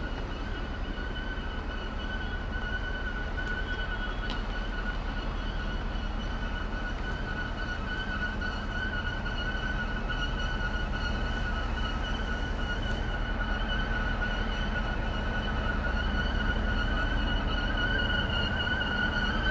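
Electric multiple-unit train passing at low speed: a low rumble with a steady high-pitched whine, growing gradually louder.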